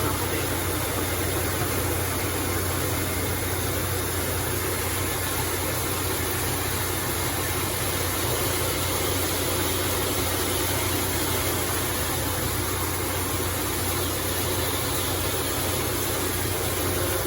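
Shin Nong rice mill running while milling rice: a steady, unchanging hum with an even rushing noise over it.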